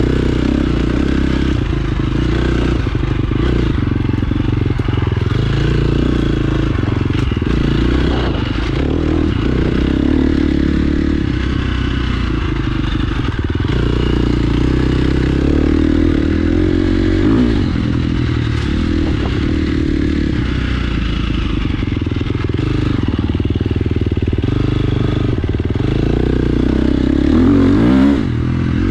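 Dirt bike engine running continuously while riding off-road, the revs rising and falling with the throttle, loudest in a sharp rev-up near the end.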